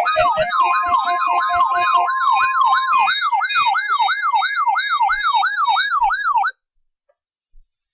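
Weather radio alert alarm for an EAS Required Weekly Test: an electronic siren whooping about three times a second over steady beeping tones. It cuts off suddenly about six and a half seconds in.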